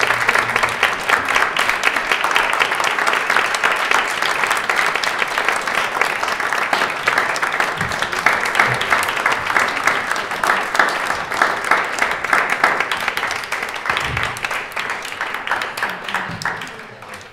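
Audience applauding: a dense, continuous patter of many hand claps that thins and fades out near the end.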